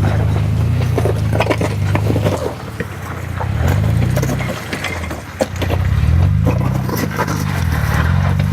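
Off-road vehicle engine running under load, its pitch rising and falling several times as it is revved, with scattered knocks and scrapes.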